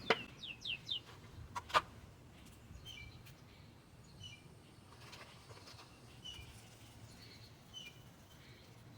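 Small birds chirping faintly, a short high call every second or so. Two sharp clicks come near the start, the louder one just under two seconds in.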